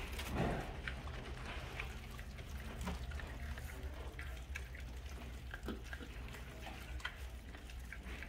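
Rottweiler puppies chewing and gnawing on raw chicken legs and thighs: scattered small wet smacks and clicks, over a steady low hum.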